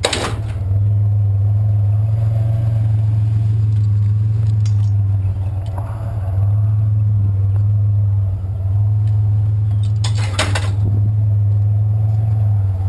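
Truck engine idling with a steady low hum, with metal clanks and rattles as scrap pieces are handled: once at the start, a faint one about five seconds in, and a louder clatter about ten seconds in.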